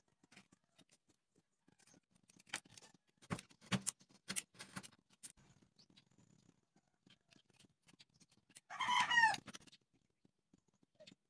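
Light clicks and knocks of popsicle-stick wood being handled and set down, then, about nine seconds in, a single bird call lasting about a second with its pitch falling at the end, the loudest sound.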